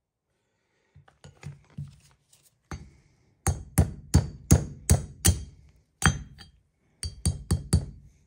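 Hammer blows on a bearing race driver, driving a new bearing race into a 1977 Corvette front wheel hub that is not yet sitting level. A few light taps come first, then a run of hard metallic strikes about three a second, with a quicker burst of blows near the end.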